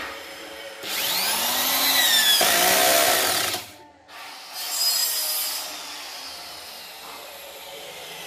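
Cordless drill-driver driving a screw through a steel drawer slide into the cabinet side: a run of about three seconds with the motor whine rising and falling, then a shorter second run a second later.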